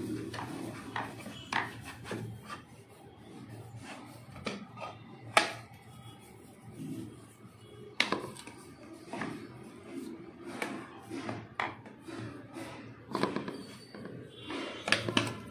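Hands pinching off and rolling mathri dough into balls on a steel plate: soft rubbing with scattered clicks and knocks against the metal, the sharpest about five seconds in and several near the end.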